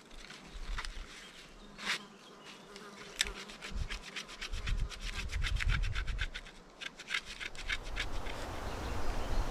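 Quick repeated scraping strokes made by hand, several a second for about three seconds in the middle, after a couple of single scrapes: a blade being scraped rapidly over material at a fire pit.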